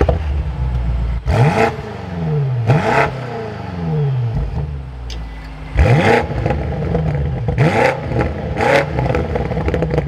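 2024 BMW M8 Competition's 4.4-litre twin-turbo V8 exhaust idling and being revved in place, five quick throttle blips that each rise sharply and fall back to idle.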